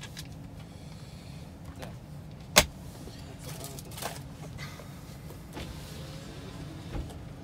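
Chevrolet's electric power window motor running, over a low steady hum, with one sharp click about two and a half seconds in.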